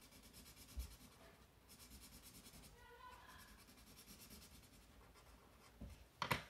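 Faint scratching of a felt-tip marker stroked quickly back and forth on sketchbook paper, colouring in letters, with a single sharp click near the end.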